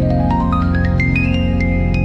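Background music: a quick rising run of short notes climbs over held low chords.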